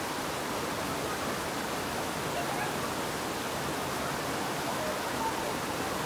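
Steady, even rush of falling and flowing water from a waterfall and its rocky stream.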